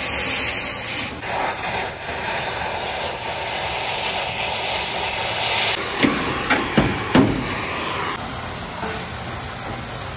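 Oxy-fuel cutting torch hissing steadily as it cuts through steel stair stringers, with a few sharp knocks about six to seven seconds in.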